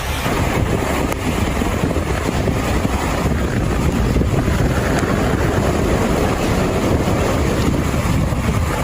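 Steady rushing noise of floodwater, with wind buffeting the microphone.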